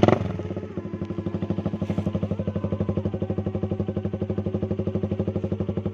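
Suzuki Raider 150's single-cylinder four-stroke engine through a Daeng open exhaust pipe: a short throttle blip at the start, then idling with a steady, rapid beat of loud exhaust pulses, about a dozen a second.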